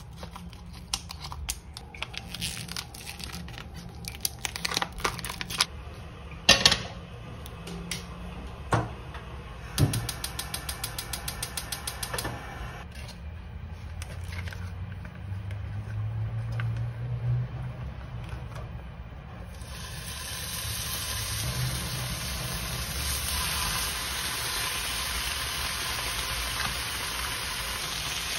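Plastic vacuum packaging of back bacon crinkling and being snipped open with kitchen scissors, with scattered clicks and knocks and a fast run of clicks around ten seconds in. About two-thirds of the way through, a steady sizzle starts as bacon slices fry in a nonstick pan.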